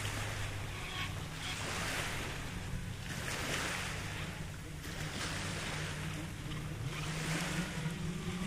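Small waves washing onto a sandy beach, swelling and fading every second or two. Beneath them runs a steady low hum that rises in pitch near the end.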